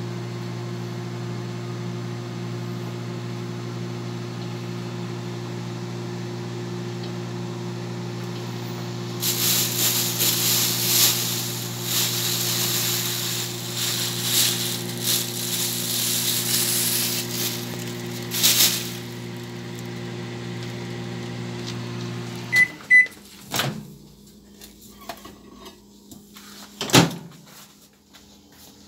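Microwave oven running with a steady low hum. About nine seconds in, a loud, fluttering hiss joins it for around ten seconds. Near the end the hum cuts off suddenly, followed by a short high beep and a few sharp knocks.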